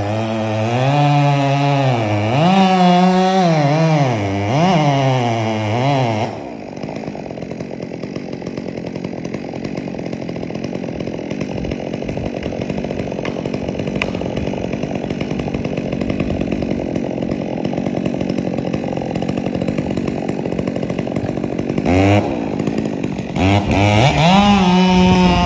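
Two-stroke chainsaw revving up and down for about six seconds, then running more steadily and quieter for about fifteen seconds, with the revving returning near the end.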